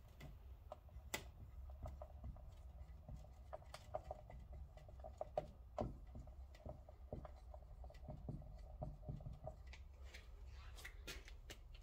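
Dry-erase marker writing on a whiteboard: faint, short squeaky strokes and light taps as letters are drawn.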